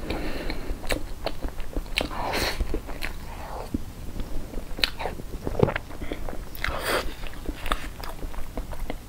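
Close-miked chewing of soft cream cake eaten from a fork: a steady run of small sharp mouth clicks with several short louder smacks.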